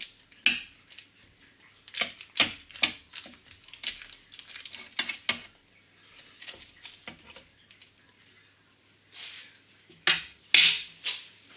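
Metal slotted spatula clicking and scraping against a parchment-lined metal baking tray as baked pastry plaits are lifted and flipped. The sharp knocks come irregularly, and the loudest clatter comes near the end.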